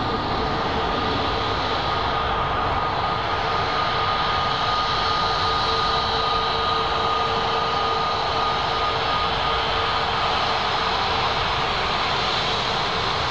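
Jet engines of a Saudia Airbus A320neo-family airliner at taxi power: a steady turbofan rush with a constant high whine and a lower steady hum over it.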